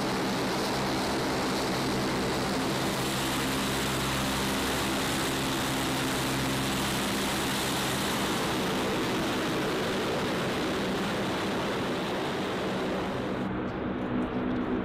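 MC-130H Combat Talon II's four T56 turboprop engines and propellers running steadily as the aircraft taxis: a continuous roar with a steady low drone. Near the end the sound turns duller as its higher part drops away.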